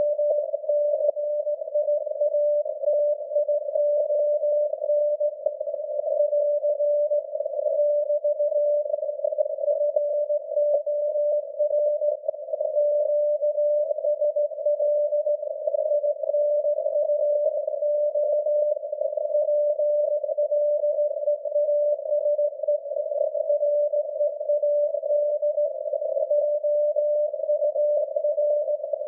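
SAQ Grimeton's 17.2 kHz VLF signal (Alexanderson alternator) received on an SDR in CW mode: a steady mid-pitched beat tone buried in a narrow band of heavy static hiss, the signal only a little above the noise.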